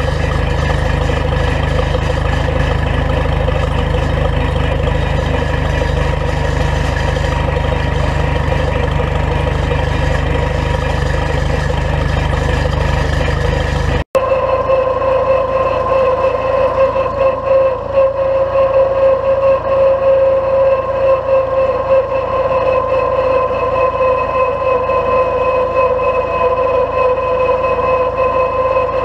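Vintage tractor engines running steadily under way, heard from a camera on the hood. The first tractor's engine is deep and even; about halfway in the sound cuts abruptly to a Case Comfort King tractor, whose engine carries a steady pitched whine and a wavering level.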